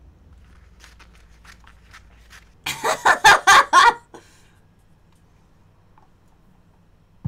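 A drink being sucked through a straw close to the microphone: a quick run of loud, gurgling slurps lasting about a second, a little before the middle, after some fainter clicks.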